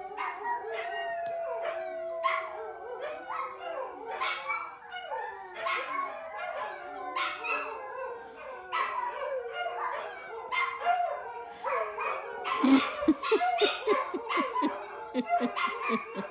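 Several dogs howling together in an overlapping chorus, mixed with yips. From about three-quarters of the way in, short barks come thicker and louder. It is separation howling, the dogs complaining at their owner leaving the farm.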